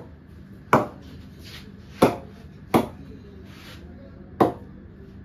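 Red leather cricket ball bounced on the face of an SS willow cricket bat in a ping test: about five sharp wooden knocks at uneven intervals, each ringing briefly.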